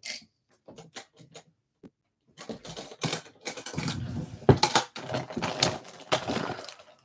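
Makeup containers being rummaged through, clicking and clattering against each other in a search for a missing item: a few scattered clicks at first, then a busy run of clatter from about two and a half seconds in, loudest around four and a half seconds.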